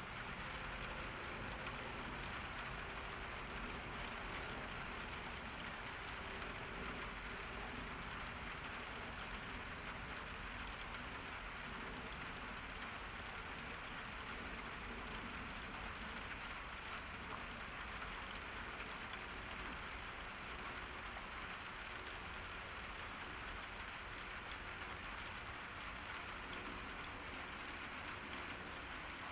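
Steady summer rain falling in a garden, a soft even hiss. In the last third a bird starts calling, giving short high chirps about once a second that stand out above the rain.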